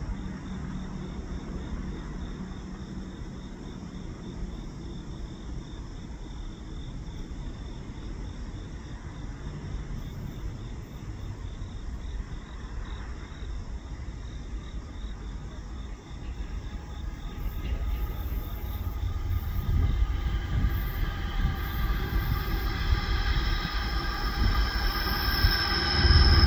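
A Norfolk Southern diesel locomotive leading a coal train approaches, its low rumble building over the second half and growing loud near the end. Steady whining tones come in over the last few seconds. Before it, insects chirp faintly over a low outdoor rumble.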